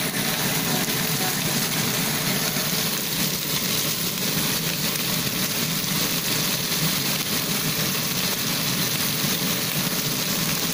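Whole ka-bang croakers pan-frying in hot oil in a non-stick pan, a steady sizzle with a low hum beneath it. The fish are golden with curled fins on the underside, ready to be turned.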